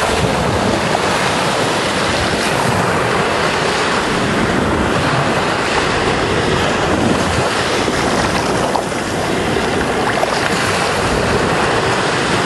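Small waves washing and breaking in shallow surf, a steady rush of water, with wind on the microphone.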